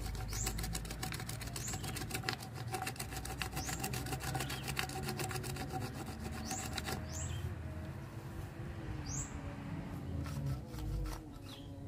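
Fast, even ticking that thins out after about seven seconds, with a few short, falling bird chirps over it.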